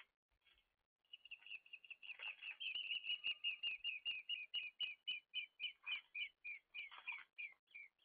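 A bird calling a long series of short, slightly down-slurred whistled notes, rapid at first and slowing toward the end.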